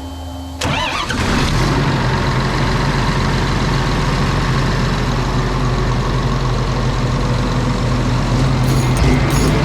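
John Deere 7J-series tractor's diesel engine starting up about half a second in, then running steadily.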